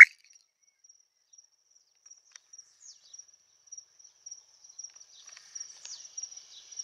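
Faint, high-pitched insect trill, on and off at first and steadier in the last couple of seconds, with a few faint ticks.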